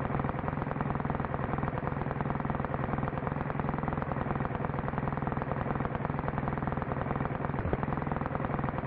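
Small model airplane engine running steadily at constant speed, a dense rapid buzz with a strong low hum.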